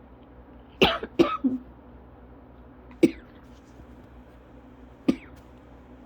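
A person coughing through a cough-variant asthma attack. There is a quick double cough about a second in, then single coughs about two seconds apart.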